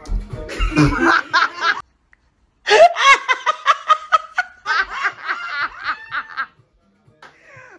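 People laughing loudly in bursts, over dance music with a thumping beat that stops about a second in. The sound cuts out briefly, then the laughter picks up again, loudest just after the gap.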